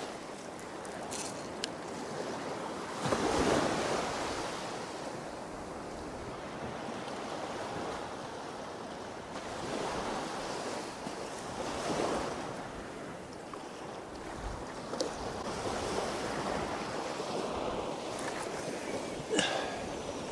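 Ocean surf washing onto a sandy beach, swelling and easing as waves break, the biggest swell a few seconds in, with wind on the microphone. A brief sharp sound comes near the end.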